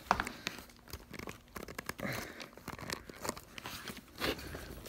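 A plastic headset mount being worked into the slot of a plastic Petzl climbing helmet by hand: scattered clicks, scrapes and rubbing, with a sharp click right at the start.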